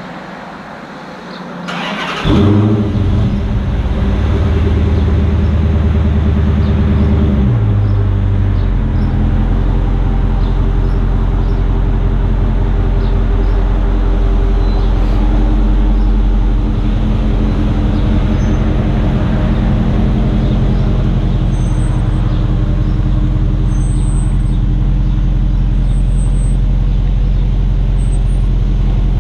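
Dodge Charger R/T's 5.7-litre HEMI V8, with Flowmaster Super 10 mufflers and resonators deleted, cranking and catching about two seconds in. It holds a higher idle for about five seconds, then drops to a lower steady idle.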